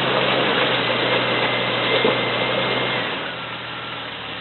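Off-road vehicle's engine running under load on a rock climb, with a steady hum and a faint whine, then easing off about three seconds in.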